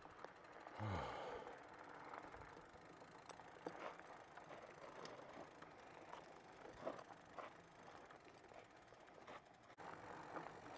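Faint rattling and scattered clicks from a Bikonit MD 750 fat-tire e-bike rolling over a dirt trail. A short falling vocal sound, like a grunt, comes about a second in.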